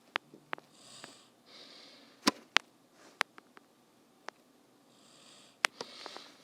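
A person sniffing through the nose a few times, with scattered sharp clicks between, the loudest two about two seconds in.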